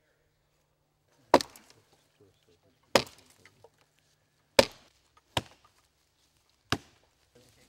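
An axe chopping into wood: five sharp, unevenly spaced blows.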